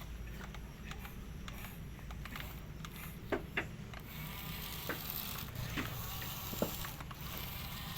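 Heavy construction machinery running as a steady low rumble, with scattered sharp clicks and knocks, the loudest a little after three seconds in.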